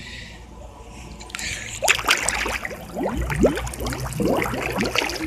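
Pool water gurgling and bubbling around a phone held under the surface. It is faint at first, then from about a second and a half in comes a dense run of bubbly gurgles and sloshes.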